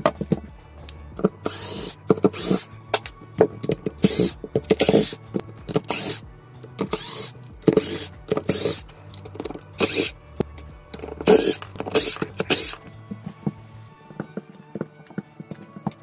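Background music with a steady bass line and beat, with short sharp clicks and rattles over it.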